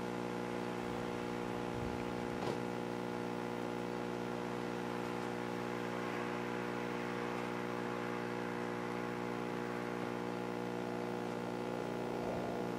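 A steady electrical hum with many overtones, holding an unchanging pitch, with a faint click about two and a half seconds in.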